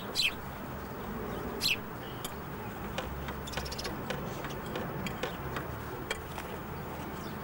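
Two short high chirps from a house sparrow, about a second and a half apart, with faint scattered ticks over a steady low rumble.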